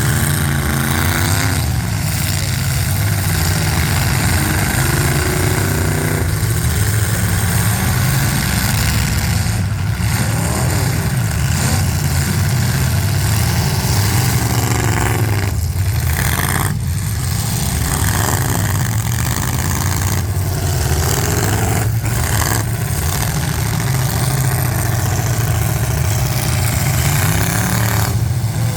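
Demolition derby cars' engines running and revving, with pitch rising and falling now and then over a steady low rumble.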